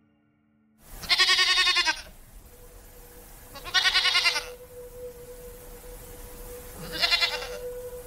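A goat bleating three times, each bleat about a second long with a quavering tremble. The first starts about a second in. A faint steady hum runs underneath.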